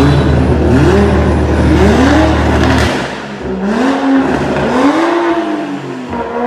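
Toyota Supra Mk5's engine revving in short blips, its pitch rising and falling about once a second as the car creeps slowly off the road onto a rough driveway. A steady low hum underneath drops away about three seconds in.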